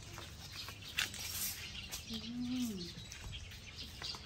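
A single knock about a second in, followed by one short hummed voice sound that rises and falls in pitch.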